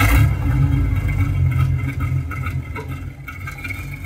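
1939 Lincoln Zephyr's rebuilt flathead V12, fitted with three carburettors, running and heard at the tailpipe. It is loudest over the first couple of seconds, then eases lower.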